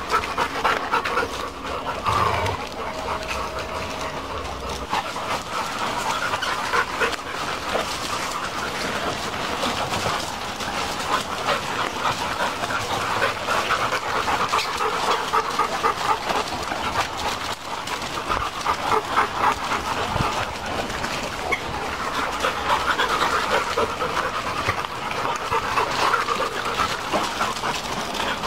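Labrador-type dogs panting rapidly and continuously, close by.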